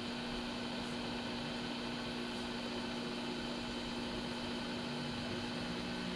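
A steady machine hum holding one low tone, over an even hiss, unchanging throughout.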